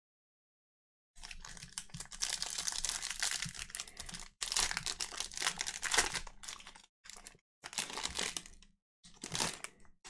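Crinkling and tearing of a foil trading-card pack wrapper being opened by hand. It starts about a second in and comes in several bursts with short breaks.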